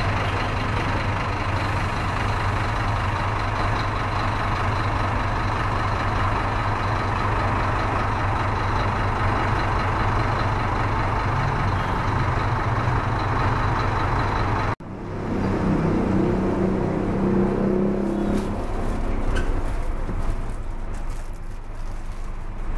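Scania coach's diesel engine running steadily, heard close at the rear of the bus. About 15 s in, a sudden cut switches to the engine as heard from the driver's area inside the coach.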